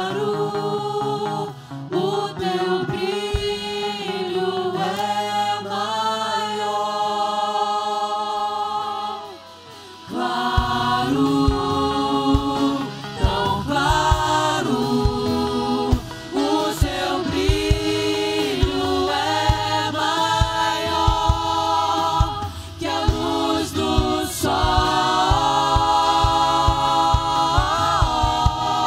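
Mixed vocal group singing a Portuguese worship song in harmony over instrumental backing. The sound drops briefly about ten seconds in, and a steady beat then runs under the voices.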